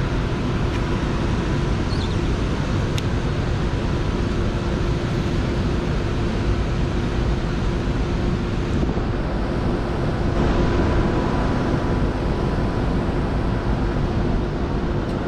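Boat engine running steadily at an even speed, with wind rushing over the microphone.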